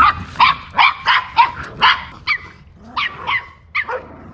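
A dog barking in a rapid run of short, sharp yaps, about two to three a second.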